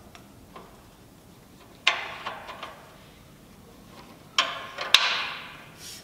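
Metal clunks and scraping from a Harbor Freight 34706 wood lathe's swiveling headstock and its locking lever being worked by hand. One sharp knock comes about two seconds in, then two more close together near the end, the last trailing off in a scrape.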